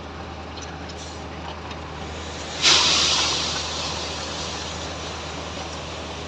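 Construction machinery engines running steadily, typical of a concrete pump and transit mixer during a concrete pour. Partway through, a sudden loud hiss starts and fades over a second or two.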